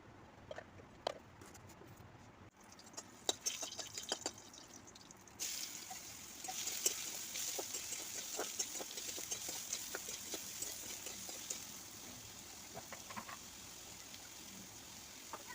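Cooking sounds: scattered clicks and taps, then from about five seconds in a steady sizzling hiss with crackles, typical of frying in hot oil in a pan.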